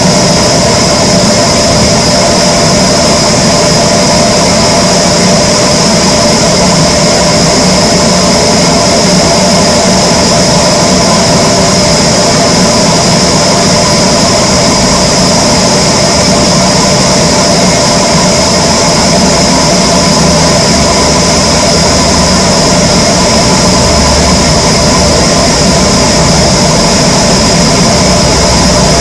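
Power saw machinery running steadily while cutting teak wood, a constant loud motor noise with a steady high whine and no pauses.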